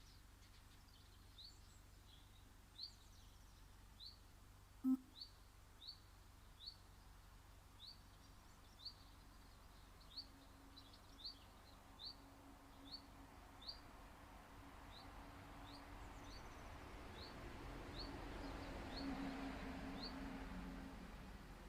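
A small bird repeating one short, high, upward-sliding chirp about once a second, over and over. A single sharp click sounds about five seconds in, and near the end a faint rush of noise with a low hum swells and fades.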